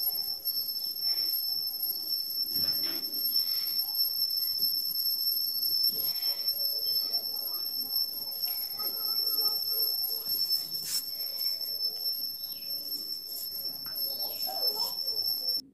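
A steady high-pitched tone with a fainter, higher overtone, cutting off suddenly near the end, over faint scattered background sounds.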